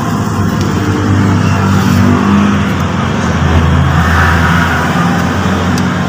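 A motor vehicle engine running steadily close by, a low drone whose pitch shifts slightly.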